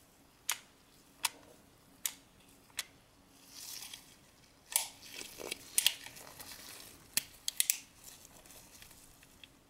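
The action of an Umarex Duke Colt single-action CO2 revolver clicking as it is worked by hand, its loading gate open: four evenly spaced clicks about three-quarters of a second apart, then a soft rustle of gloved hands and a further, irregular run of clicks.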